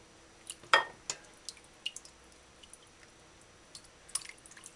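Hands rinsing raw chicken pieces in a stainless steel pot of water, making scattered splashes and drips. The loudest comes about three-quarters of a second in, and a cluster of them just after four seconds.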